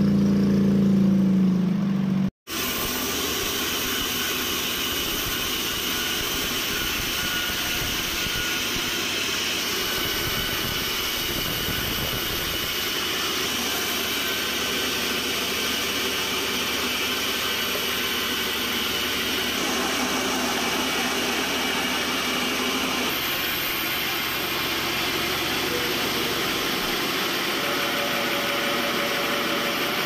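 Sawmill band saw headrig machinery running steadily, a continuous mechanical hum and hiss with no strokes or rhythm. About two seconds in the sound cuts out for an instant. After that it goes on steady and thinner, with less low hum.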